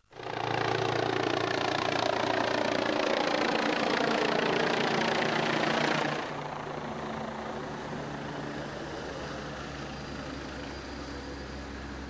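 Helicopter flying low over the site, its rotor and engine noise falling steadily in pitch as it passes. About halfway through, the sound drops abruptly to a quieter, steady low rumble.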